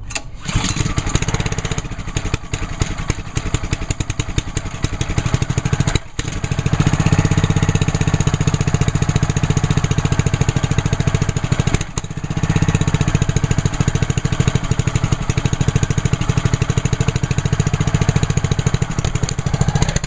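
Honda GCV198 small engine on a pressure washer catching on a pull-start and then running steadily, a cold start on choke after winter storage. The running sound dips briefly twice, about six and twelve seconds in.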